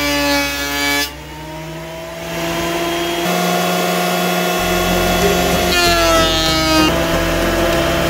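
Benchtop thickness planer running and cutting wooden strips as they are fed through. The motor's whine drops in pitch under load about six seconds in, then jumps back up as the cut ends.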